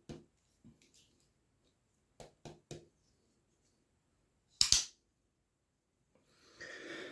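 Ratcheting clicks from the hidden carraca mechanism of a navaja folding knife as the blade is moved through its stages: single sharp clicks, a quick run of three about two seconds in, then a much louder double click a little before five seconds.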